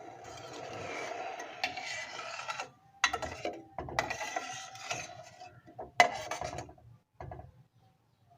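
Kitchen utensils scraping and rubbing in several strokes, with two sharp knocks, the louder one about six seconds in.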